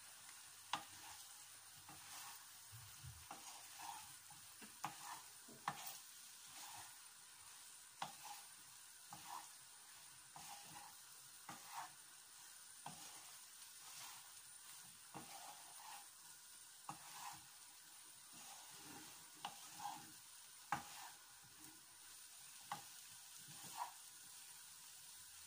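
Wooden spatula stirring bread cubes, potato and onion in a non-stick frying pan: faint, irregular taps and scrapes about once a second over a low, steady sizzle.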